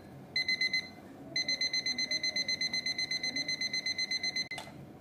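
IKEA alarm clock's electronic alarm beeping in one high tone: a short burst of beeps, a gap of about half a second, then a faster run of about eight beeps a second. The beeping stops suddenly near the end, with a click.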